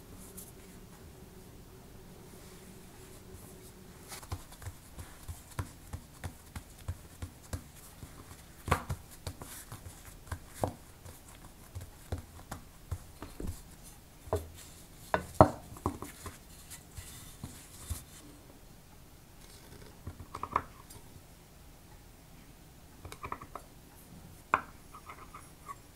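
Hands pressing and flattening bread dough on a countertop, giving a run of soft irregular taps and knocks. Near the end come a few sharper clicks as a knife blade cuts slits in the dough and meets the counter.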